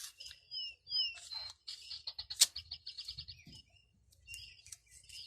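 Small bird chirping: a few quick sliding whistled notes, then a rapid trill of repeated high notes, and more chirping near the end. A single sharp click about two and a half seconds in, with faint scattered ticks.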